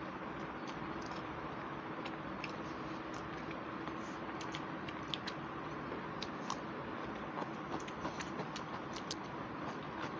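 Eating by hand: scattered small clicks and smacks of chewing and of fingers working rice on paper plates, more frequent in the second half, over a steady background hiss with a faint hum.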